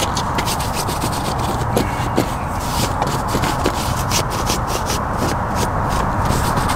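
Close rubbing and scratching, a quick run of short scrapes and clicks, over a steady hiss.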